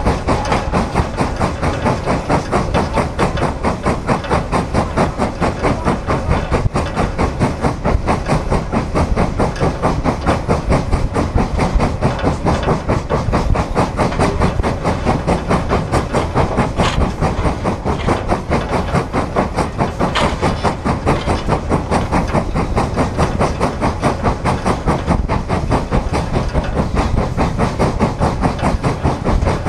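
Frisco 1630, a 2-10-0 Decapod steam locomotive, working hard under a heavy freight train, its exhaust chuffing in a fast, even beat, heard from atop the tender just behind the cab. A couple of sharp clanks stand out about two thirds of the way through.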